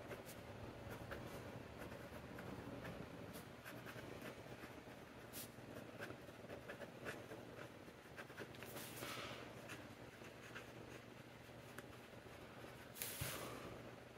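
Fountain pen with a bent nib (Jinhao 82) scratching faintly across notebook paper in short strokes and pauses as words are written, with a couple of louder rubbing strokes about nine seconds in and near the end.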